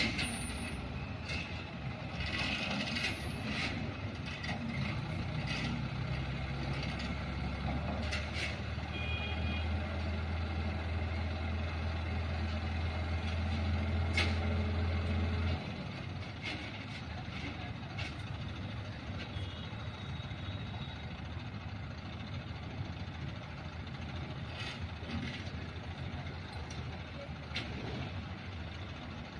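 Diesel engine of a mobile crane running under load as it hoists a concrete slab, with a deep steady drone that stops abruptly about halfway through. Scattered sharp knocks and clanks.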